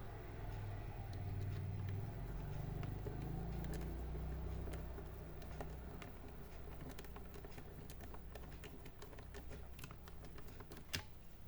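Small, light clicks and taps of plastic and metal laptop parts being handled and fitted, scattered irregularly, with one sharper click near the end. A low rumble runs under the first half.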